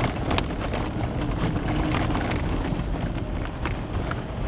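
Vehicle driving along a rough dirt track, its engine and tyre rumble heard from inside the cab, with a few light knocks and rattles.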